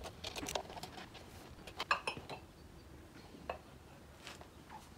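Scattered metal clicks and clinks from a hand tool on the cylinder-head bolts of a small air compressor's pump, and the loose head being lifted off. The loudest cluster of clinks comes about two seconds in.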